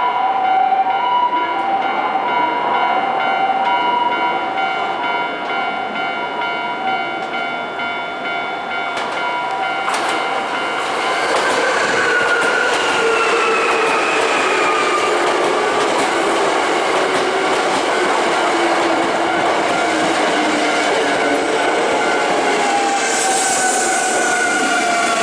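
Japanese level-crossing warning bell ringing in an alternating two-tone pattern. From about ten seconds in, a Hankyu electric train passes over the crossing with wheel noise on the rails, its motor whine falling slowly in pitch.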